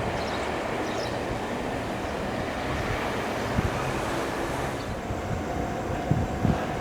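Train running on the rails: a steady rumble with scattered low knocks, joined about five seconds in by a thin steady hum.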